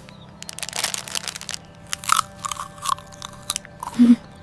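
Crunching and chewing of a bite taken from a chocolate bar: clusters of quick crackly crunches.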